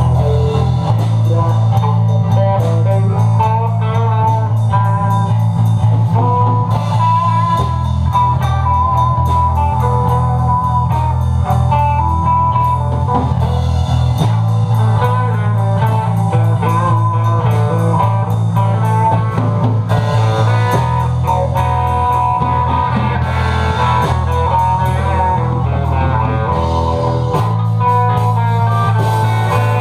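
Live blues jam: guitar playing a lead line over a bass and a drum kit with cymbals. The bass shifts to a new note every six or seven seconds, following the chord changes.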